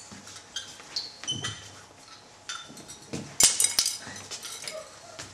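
Teacups and spoons clinking in a scattered series of light chinks as tea is served and stirred, with a louder clatter about three and a half seconds in.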